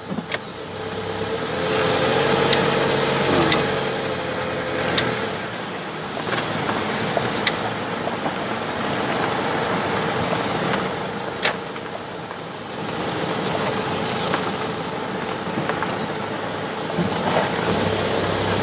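Car engine and road noise while driving, a steady hum with a few sharp clicks and knocks, the loudest about eleven seconds in.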